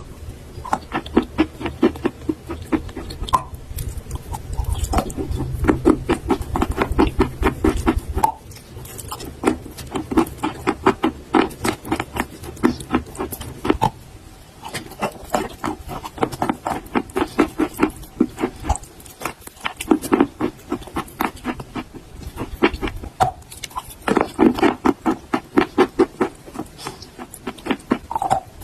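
Chalk being bitten and chewed close to the microphone: runs of rapid crisp crunches in bursts a few seconds long, with short pauses between them. A low hum sits under the first half.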